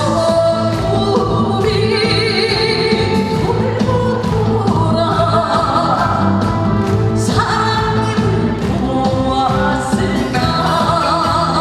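Live band playing a trot song's instrumental interlude between sung verses, with a steady beat under sustained melodic lines.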